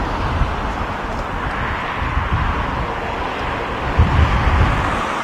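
Storm-force wind buffeting the microphone in irregular low rumbling gusts, strongest about four seconds in, over a steady rushing noise.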